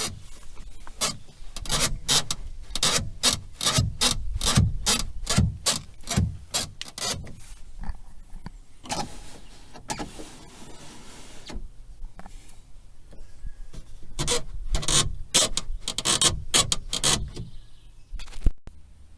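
Renault Logan 2 power window glass moving in its door and squeaking in a quick series of rubbing strokes, about three a second, with a steadier stretch in the middle. The squeak comes from the window regulator slides, whose old grease has dried out.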